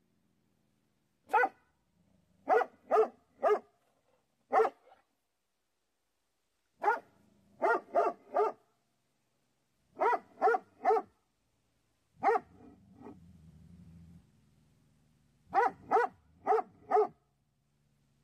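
A canine barking: loud, sharp barks in bursts of one to four, repeated every couple of seconds. A faint low rumble runs under the barks for a couple of seconds past the middle.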